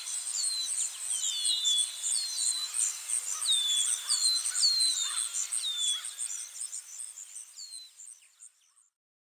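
Outdoor nature ambience: a steady, fast-pulsing high chirring of insects, with repeated short downward-sliding bird calls. It fades out near the end.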